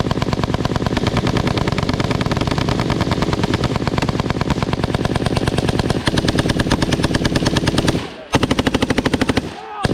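Belt-fed M240 machine guns firing a long continuous burst at cyclic rate on command, lasting about eight seconds. After a brief pause comes a second, shorter burst, and fire starts again at the very end.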